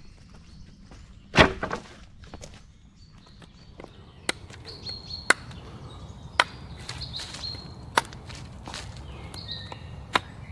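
A loud woody clatter about a second in, then sharp knife chops into a green wooden pole, roughly one a second, with faint bird chirps.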